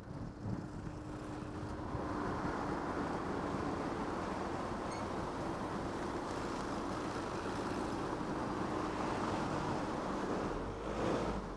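Wind noise on a roof-mounted action camera's microphone over the car's steady road and engine noise in slow town traffic, with a louder rush of wind near the end.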